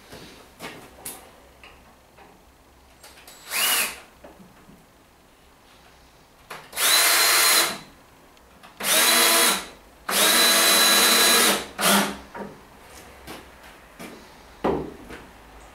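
Cordless drill with a crosshead bit driving wood screws into timber: a short rising blip of the motor about four seconds in, then three steady runs of a second or two each, the last the longest, with a brief blip just after.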